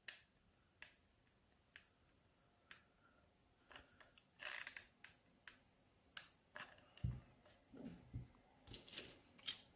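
Near silence broken by faint clicks, about one a second at first, and soft handling noise from a hot glue gun worked along wooden craft sticks on a glass jar, with a few low soft knocks near the end.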